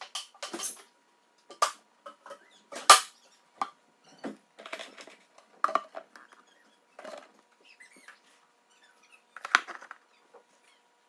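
Chinese mantis chewing a wolf spider: irregular sharp crunches and crackles as its mouthparts break through the spider's body, the loudest about three seconds in. A faint steady high tone sits underneath.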